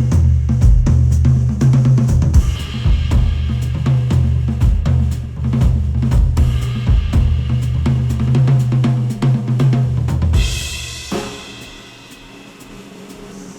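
Music with a full drum kit (kick, snare, hi-hat and cymbals) over a heavy bass line, played through headphones and picked up by microphones. About ten seconds in the bass and kick drop out and the music thins and falls quieter.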